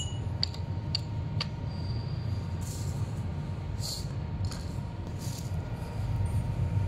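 Light metallic clicks and clinks from small metal parts being handled and fitted at an electric scooter's folding hinge, with a few brief scraping sounds, over a steady low background rumble.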